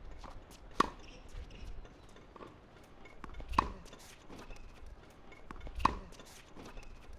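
Tennis ball struck by a racket three times, about two and a half seconds apart, each hit a sharp ringing pock, with fainter ball bounces between the hits.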